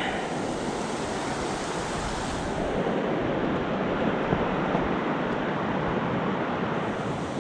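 Steady rushing of a mountain river, the East Fork of the Bear River, running lower than usual for spring runoff.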